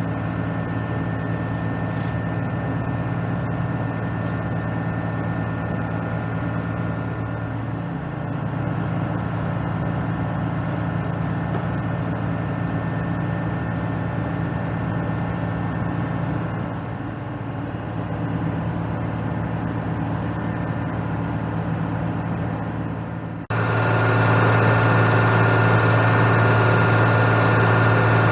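Diesel engine of a 2004 ABG Titan 226 crawler asphalt paver running steadily at idle. Near the end it suddenly gets louder and brighter, then holds steady.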